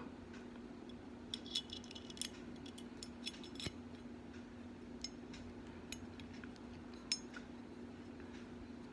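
Light metallic clicks and clinks, a few scattered taps over several seconds, as small steel parts of a Glock 17 Gen 4 slide, such as the extractor and firing pin safety, are handled and fitted.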